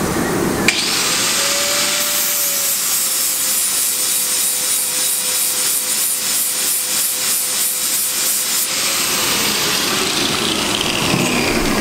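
Electric angle grinder starting up and grinding metal off the edge of an engine flywheel on a balancing machine, taking off a small amount of weight to correct its imbalance: a steady whine under a hissing grind. About nine seconds in it is switched off, and the whine falls away as it spins down.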